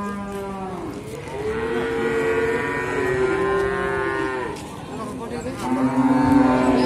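Calves mooing in long, drawn-out calls: one call fades out about a second in, a long one follows for about three seconds, and another begins near the end.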